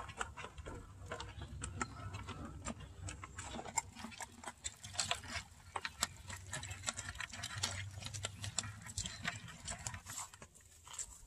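Live crawfish being shaken out of a wire-mesh trap into a plastic bucket, their shells clicking and scrabbling against the plastic and each other: a long run of irregular light clicks and taps that thins out near the end.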